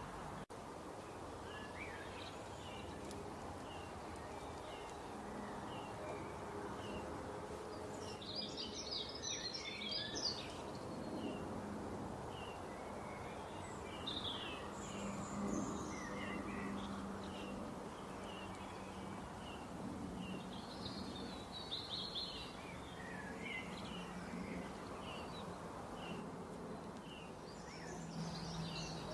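Birds chirping and singing outdoors: a stream of short high calls, with denser bursts of twittering about a third of the way in, again past the two-thirds mark and near the end, over a steady background noise.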